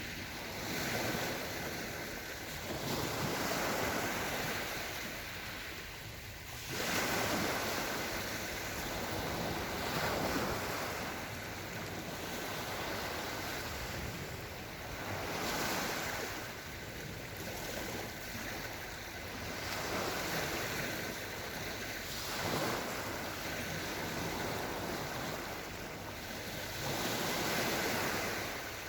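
Small Black Sea waves washing onto the shore one after another, each swelling and falling away over a few seconds, with one sharper break about a quarter of the way in.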